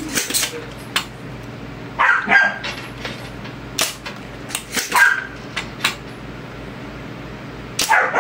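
A dog barking repeatedly in short, separate barks, about one every second or so, over a low steady hum.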